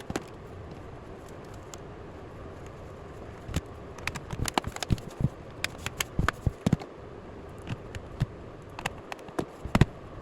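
Irregular sharp clicks and light knocks, clustered from about three and a half to seven seconds in and again near the end, from hands handling a laptop's plastic case and keyboard parts, over a steady faint hiss.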